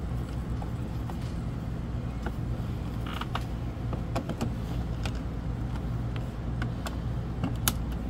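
Scattered small clicks and taps of a screwdriver and screws on the metal plate of an RV door lock as it is fastened on, the sharpest near the end, over a steady low mechanical hum.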